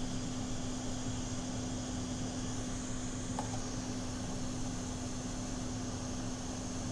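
Steady whirring hum of an electric fan, with a steady low tone running through it.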